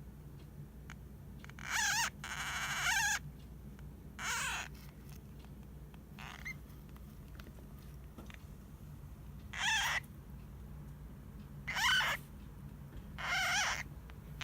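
Pet hamster squeaking in its sleep: several short, high, wavering squeaks spaced irregularly, the longest about a second, made while the hamster is half-asleep and which the owner wondered might be snoring.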